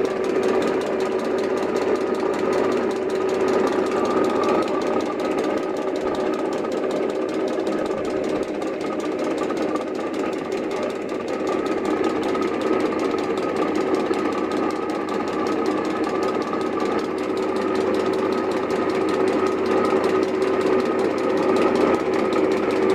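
Hendey metal lathe running steadily with a boring bar cutting inside the spinning workpiece: a steady hum with a fast, even rattle.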